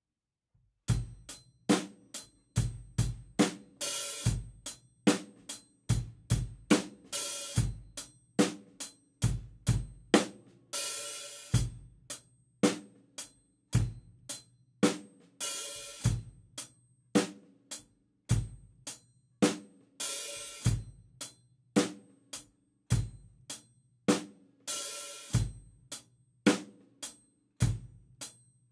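Acoustic drum kit playing a slow beat, starting about a second in: eighth notes on the closed hi-hat with bass drum on counts one and three. Once a bar the hi-hat is opened on the 'and' of four, giving a longer washy 'bark', and pedalled shut on the next downbeat.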